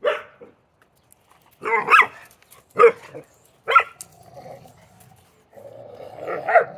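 A dog barking in four or five short, sharp barks, then growling steadily through the second half.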